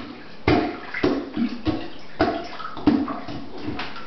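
Rubber toilet plunger splashing and sloshing in the water of a toilet bowl, worked in quick repeated strokes, about six in all.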